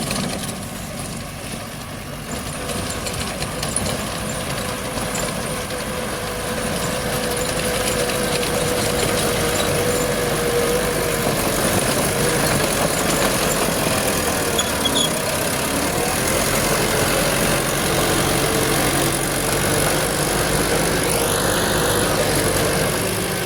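Old Furukawa bulldozer's diesel engine running steadily with a thin steady whine over it, getting louder a few seconds in and then holding.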